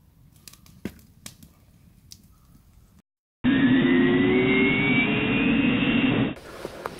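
A whoosh transition sound effect: a loud rush of noise with rising tones, like a jet passing, lasting about three seconds and cutting off suddenly. Before it are a few seconds of faint quiet with a few soft clicks and a short moment of total silence.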